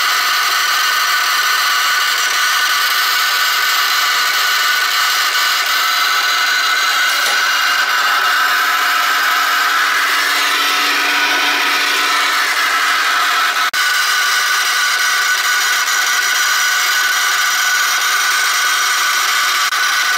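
Leather splitting machine running steadily: a continuous mechanical whir with several fixed high tones, with a brief dropout about two-thirds of the way through.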